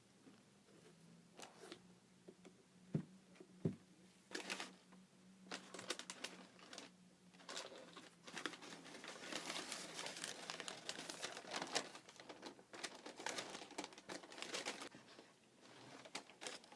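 Packaging wrap being crinkled and rustled by hands while a sneaker box is unpacked. There are a few light taps and two sharp knocks about three seconds in, then steady crinkling for most of the rest, easing off near the end.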